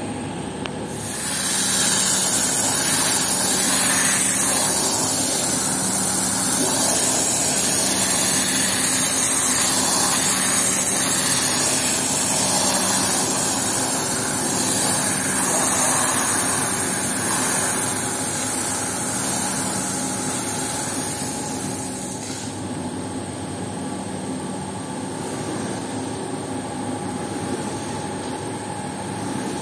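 A pressure washer's water jet hissing loudly onto a soaked rug, starting about a second in and cutting off sharply about three-quarters of the way through, over the steady hum of the washer's motor, which keeps running after the spray stops.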